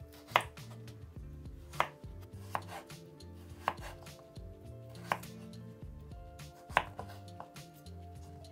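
Kitchen knife slicing through peeled raw potatoes, the blade knocking on a wooden cutting board at the end of each cut: about six sharp knocks at uneven intervals.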